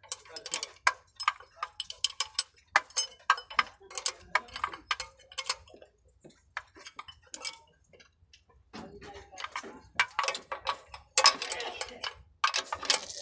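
Irregular metallic clicks and clinks of hand tools working the diesel fuel-line bleed fittings, as they are tightened once bleeding is finished.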